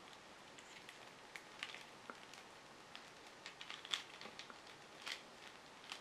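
Faint scattered ticks and crinkles of a power adapter's cable being unwound by hand, the clearest about four and five seconds in.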